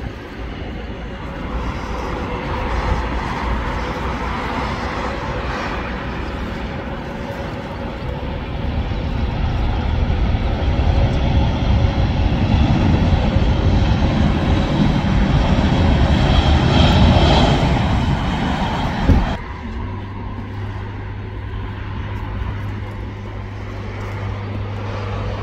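Airbus A320-family jet engines with a loud rushing noise and a steady whine, swelling to a peak about three-quarters of the way through. A sudden cut near the end switches to a Boeing 737's engines, quieter, with a steady low hum.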